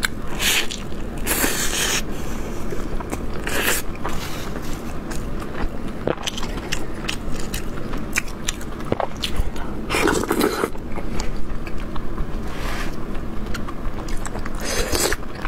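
Close-up eating sounds of a person biting into and chewing an Old Beijing shaobing flatbread stuffed with meat. Several loud bites come at intervals, with chewing and small mouth clicks in between.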